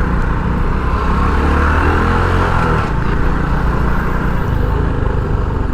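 Motorcycle engine running while riding slowly through city traffic, with steady road and wind noise; the engine note rises and falls slightly about two seconds in.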